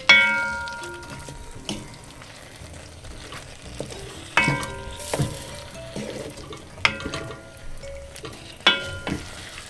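A spoon knocking against a cooking pot while a curry is stirred, four ringing clinks that fade quickly, over the steady sizzle of the curry cooking in the pot.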